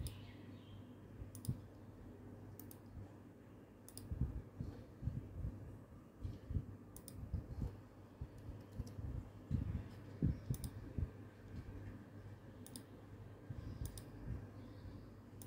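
Scattered sharp clicks from a computer pointing device as items and drop-down menu options are selected, about seven in all, with soft low thumps and a faint steady low hum underneath.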